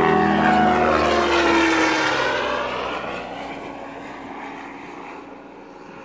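An aircraft flying over. Its engine drone drops in pitch as it passes, then fades steadily away.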